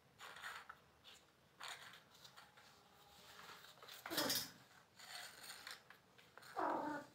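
A bangle scraping and clinking on a bare concrete floor as a kitten paws and pushes it, in about five short bursts, the loudest about four seconds in.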